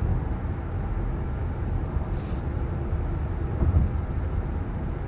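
Steady low rumble of road and engine noise inside the cabin of a moving car, with a brief soft hiss about two seconds in.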